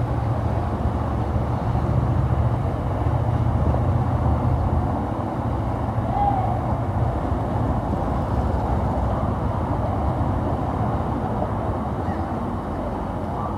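Motor cruiser's engine running as the boat passes on the river, a steady low hum that eases off about halfway through.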